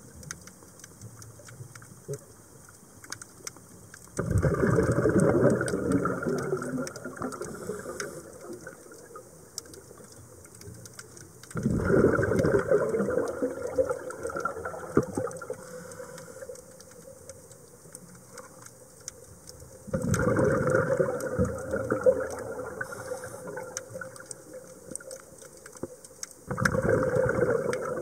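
A scuba diver's exhaled regulator bubbles, heard underwater: four bursts of bubbling, one every seven seconds or so, each starting suddenly and fading over a few seconds. Between them, faint scattered clicks.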